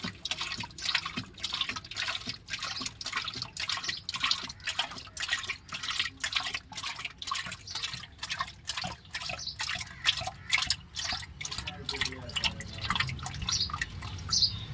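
Engine oil glugging out of a plastic jug and splashing into an open tractor engine, in an even rhythm of about three glugs a second that weakens near the end.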